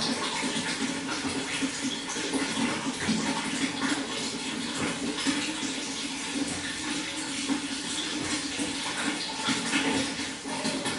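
Running water flowing steadily, a continuous rushing splash with no pauses.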